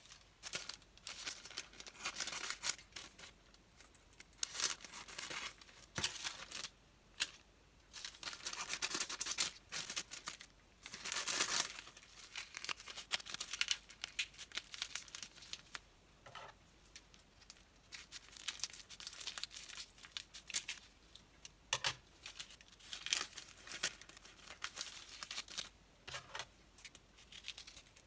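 Sheets of white paper being handled, folded and crinkled in bursts of rustling, with scissors snipping the folded paper into a round near the end.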